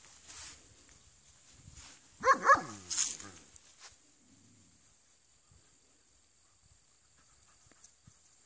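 A dog barks in a quick burst of two or three barks about two seconds in, each falling in pitch.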